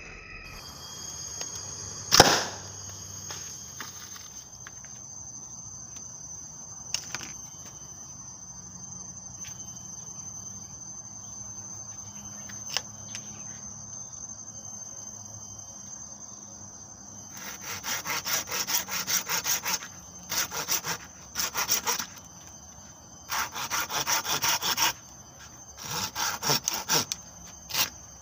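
A single sharp crack about two seconds in, then a steady high-pitched insect drone. From a little past halfway, a hand saw cuts a small piece of wood in quick back-and-forth strokes, in bursts of one to two seconds with short pauses between them.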